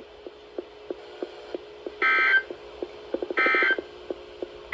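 Emergency Alert System end-of-message data bursts: short, identical squawks of digital modem-like tone, repeated about every second and a half, marking the end of the spoken severe thunderstorm warning. Faint ticking and a low hum lie underneath.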